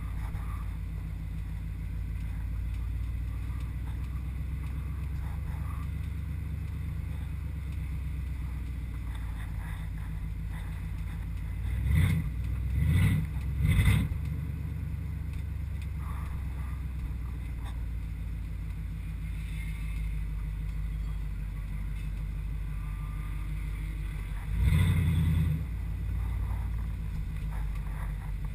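Mercedes 560SEL V8 running at a steady idle, heard from inside the stripped cabin, with three short louder swells about twelve to fourteen seconds in and another near twenty-five seconds.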